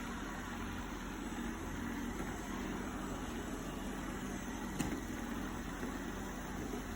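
Robot vacuum cleaner running with a steady motor whir and hum, with a single short click about five seconds in.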